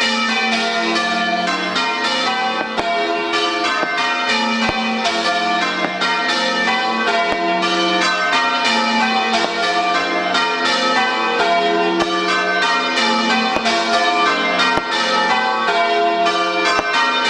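St Mary's church bells ringing changes: a continuous, even run of overlapping bell strokes at several pitches, each stroke ringing on into the next.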